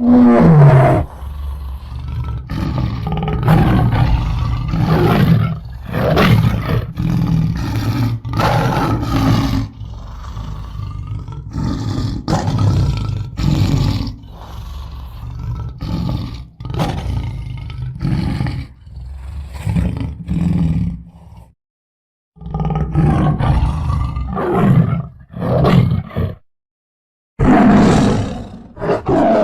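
Tiger roaring and growling in a long run of repeated calls over a deep rumble, breaking off twice briefly in the last third.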